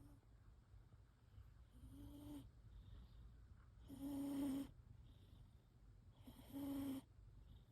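A sleeping cat snoring: three short, pitched snores about two and a half seconds apart, the middle one loudest.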